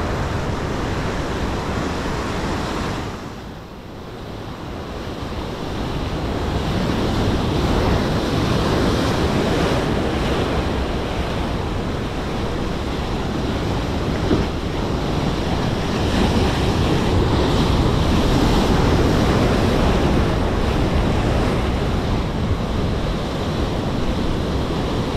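Sea surf breaking and washing on a rocky shore, with wind buffeting the microphone. The wash drops away about three seconds in and swells back up over the next few seconds.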